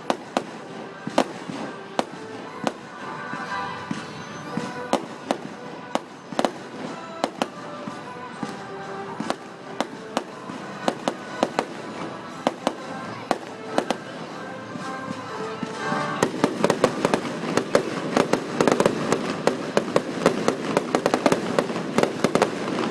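Fireworks show: shells bursting with irregular bangs over music playing in the background. About 16 seconds in, the bangs turn into a dense, rapid barrage and it gets louder.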